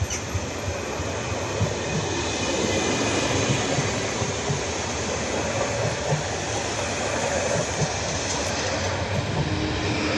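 PKP Intercity Stadler FLIRT (ED160) electric multiple unit rolling past: a steady rumble of wheels on rail, with repeated clacks as the wheels cross rail joints.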